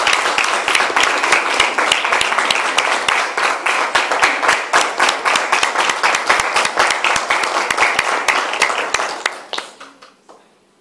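Room audience clapping and applauding, dying away near the end.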